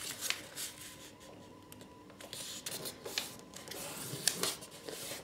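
A square of origami paper rustling and scraping softly as it is folded in half and the crease pressed flat, with a few light scratchy clicks from fingers on the paper and table.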